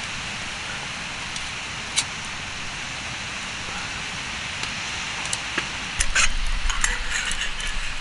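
Wood campfire burning with a steady hiss and occasional sharp crackles; about six seconds in a louder stretch begins, with a low rumble and a quick run of crackles and knocks.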